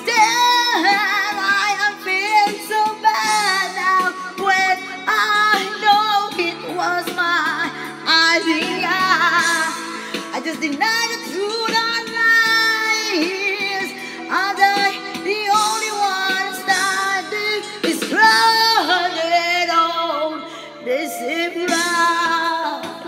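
A woman singing a slow song with long held notes and heavy vibrato over a music backing track.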